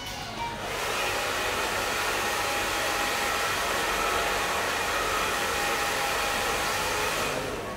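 Shampoo-basin hand sprayer running, a steady rushing hiss of water spray that starts about a second in and cuts off near the end.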